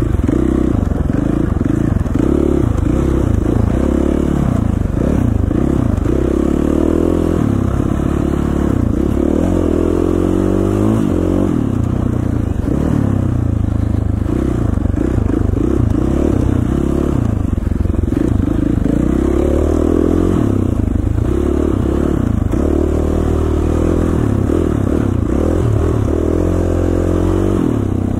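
KTM 450 dirt bike's single-cylinder four-stroke engine under way, revving up and dropping back again and again with throttle changes.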